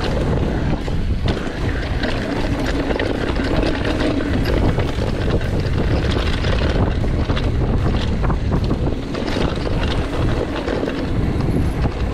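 Mountain bike rolling fast down a dirt trail: tyre rumble and wind on the microphone, with frequent clicks and rattles from the bike over rough ground.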